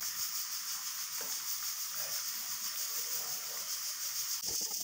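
Pork rib pieces sizzling in lard in a hot pot, a steady high hiss. A couple of soft knocks come near the end.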